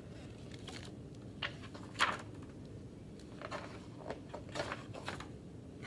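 A hardcover picture book being handled and opened: several short rustles and taps from its cover and paper pages, the sharpest about two seconds in, over faint steady room noise.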